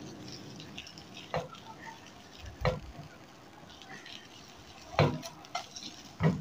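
A spatula knocks and scrapes a few times in a non-stick frying pan as a makhana pancake is turned over, with faint frying sizzle underneath.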